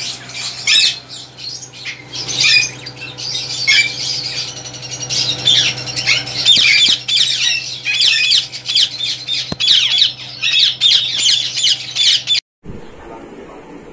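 Several parrots squawking, with harsh calls in quick overlapping succession over a steady low hum. The calls cut off abruptly near the end, leaving only the hum.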